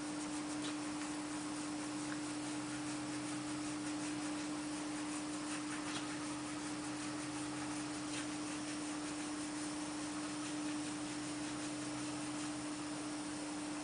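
Bright LC 885 automatic tyre changer's motor running with a steady hum over a hiss, cutting off near the end.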